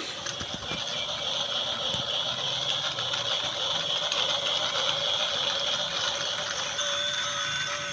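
Small electric motor and gears whirring steadily, like a toy RC vehicle running.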